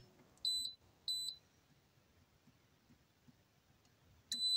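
Digital air fryer beeping: two short, high beeps about half a second apart as its buttons are pressed to set one more minute of cooking, then a longer steady beep near the end.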